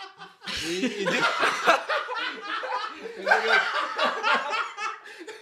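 Two men laughing hard in quick repeated bursts, starting about half a second in.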